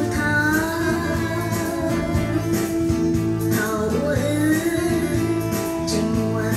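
Background music: a song with a singing voice holding long, gliding notes over instruments.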